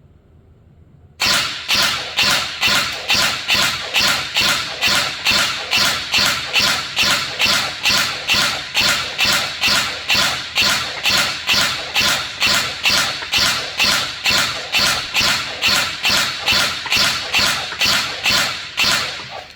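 INF M4 14.5-inch airsoft electric gun firing single shots in a steady string, about forty at roughly two and a half a second, starting about a second in and stopping just before the end. It is being test-fired after a repair to its control circuit.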